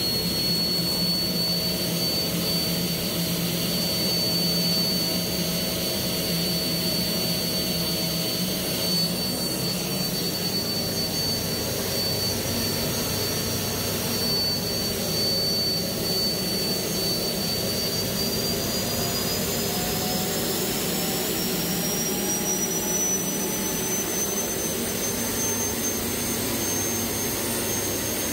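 Homebuilt turbocharger-based turbojet engine running with a steady high-pitched whine over a rushing roar. About two-thirds of the way through, the whine climbs in pitch as the engine spools up to higher speed.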